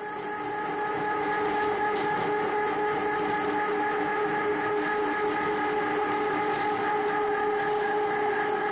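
Machinery running steadily: a constant drone of several held tones over a rushing noise, swelling up over the first second or so.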